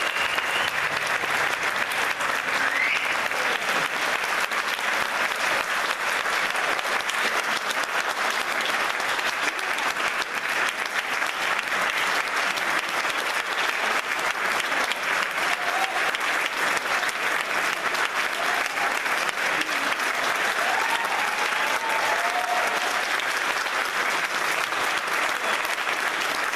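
Audience applauding steadily, a dense sustained clapping that neither swells nor fades.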